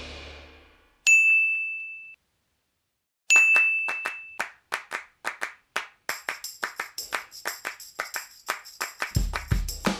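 Two bright sound-effect dings, each ringing for about a second, with a short silence between them. A quick run of sharp clicks like clapping follows and grows denser, and music with a beat comes back in near the end.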